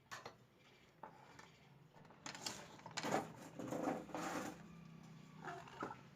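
Handling noise at a repair bench: a few clicks, then a stretch of scraping and rustling from about two to four and a half seconds in, and two more clicks near the end, over a faint steady low hum.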